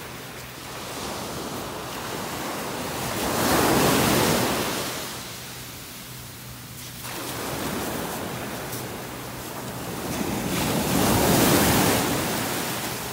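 Sea surf: small waves breaking and washing up a sandy shore. The wash swells and fades, loudest about four seconds in and again near the end.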